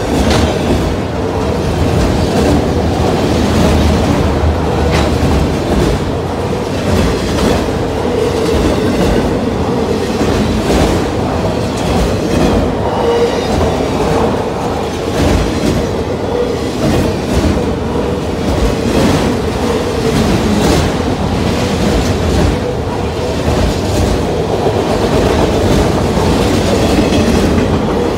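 Autorack freight cars rolling past close by. Steel wheels run steadily on the rail, with repeated clickety-clack as the wheel sets cross rail joints.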